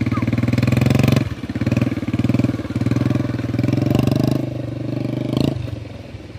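Small single-cylinder engine of an old stripped-down step-through motorbike running, rising and falling in revs. The sound breaks off briefly about a second in. There is a sharp knock near the end, after which the engine is quieter.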